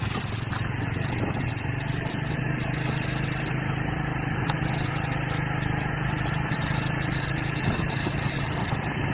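Motorbike engine running at a steady cruising speed, with a constant low hum under wind and road noise.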